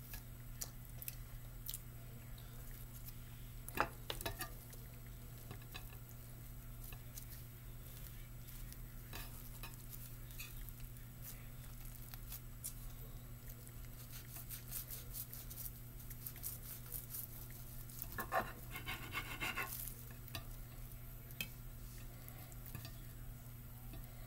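A knife and hands working a nori-wrapped sushi roll on a glass plate: faint scattered taps, clicks and scrapes, with a sharper tap about four seconds in and a quick run of crackles a little before the end. A low steady hum runs underneath.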